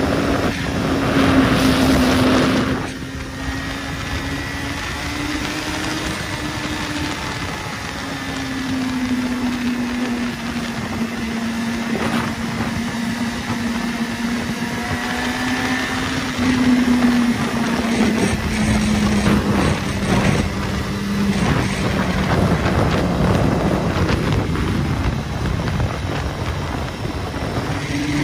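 Sport motorcycle engine running at a steady cruise, its note rising and falling a little as the throttle changes, with wind rushing past the helmet-level microphone, loudest for the first three seconds.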